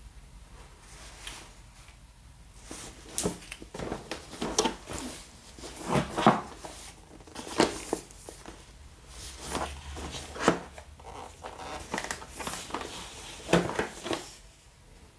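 Cardboard router box handled by gloved hands: irregular rubs, taps and knocks as it is turned over and tilted.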